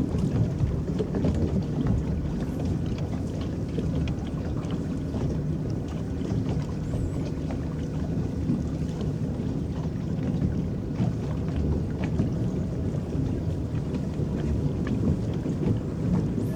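Water churning and lapping against the hull of a small electric boat under way, driven by its paddles: a steady low rush with small splashes and ticks throughout.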